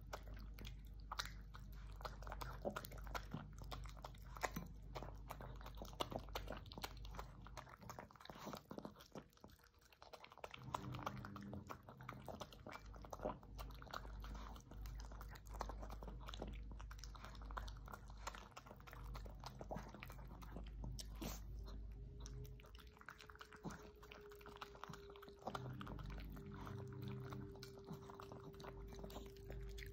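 A dog eating from a bowl: irregular chewing and smacking with many small clicks as it works through soft mashed food. A faint steady tone comes in about two-thirds of the way through.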